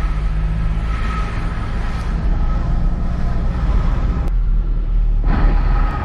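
Car running, heard from inside the cabin: a steady low rumble with a hiss over it. About four seconds in, the higher sounds drop out for about a second, leaving only the low rumble, then return.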